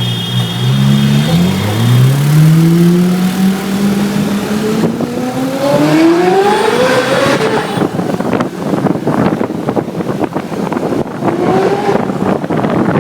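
Ferrari 458 Italia's V8 through an IPE aftermarket exhaust, revving under acceleration: its note dips, then climbs steadily in pitch for about six seconds. After that the clear note gives way to a rough, crackly noise, with one short rising rev near the end.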